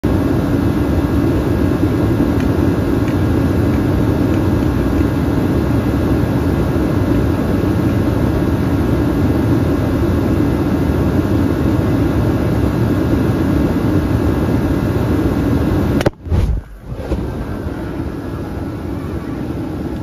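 Forced-air torpedo heater running steadily, its hot blast heating an aerosol can of starting fluid. About 16 seconds in the can bursts with one sharp bang and a rush of flame, and the sound is quieter afterwards.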